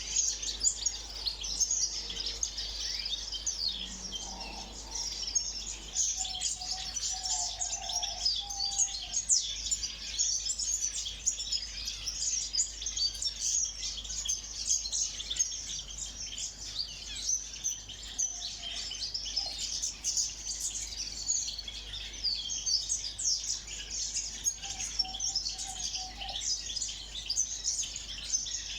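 A flock of small ornamental cage birds in an aviary chirping together in a dense, continuous high-pitched chatter, with a few lower notes now and then.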